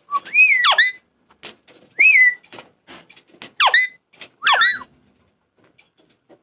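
Parrot whistling and mimicking talk: about four loud whistled calls with sweeping rising and falling pitch, with short clicks and chatter between them.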